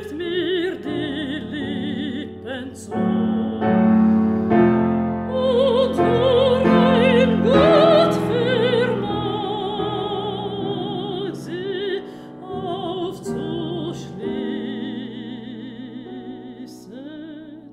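A mezzo-soprano sings a German art song with wide vibrato over piano accompaniment. The music grows quieter in its last few seconds and dies away.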